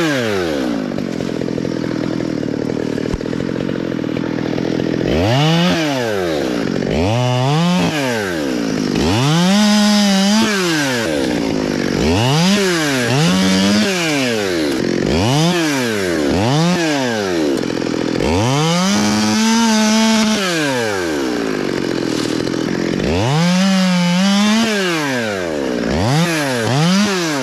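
Small one-handed top-handle two-stroke chainsaw revving over and over, each rev climbing and dropping again, some held briefly at full throttle as it cuts into a cottonwood limb.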